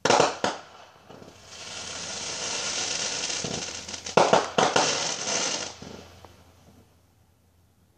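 Fireworks going off: two sharp reports at the start, then a long crackling hiss that swells and fades, with more loud bangs about four seconds in.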